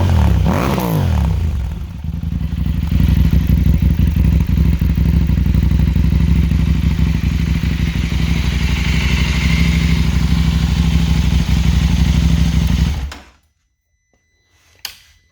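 Husqvarna Norden 901's parallel-twin engine, breathing through an Arrow cat-delete mid-pipe and Akrapovic muffler, drops back from a rev to a steady idle. It cuts off about thirteen seconds in and is followed by a single click.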